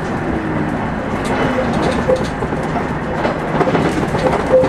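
Running noise inside a JR Shikoku 2000 series diesel tilting express car as it travels, a steady rumble with occasional sharp clicks from the wheels and track.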